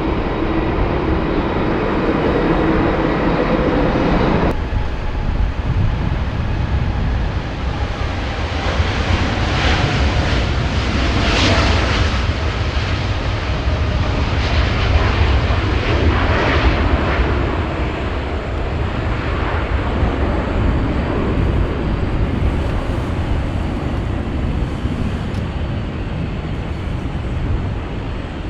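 Jet airliner engines running loud with a deep rumble as the aircraft passes close by, swelling to a peak partway through and then easing. A steady engine whine in the opening seconds cuts off abruptly about four and a half seconds in.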